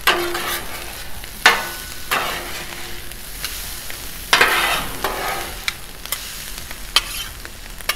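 Hash browns and chorizo sizzling in oil on a steel flat-top griddle, with two metal spatulas scraping and turning the food on the plate in several loud strokes, and a few sharp clicks from popping fat and spatula taps.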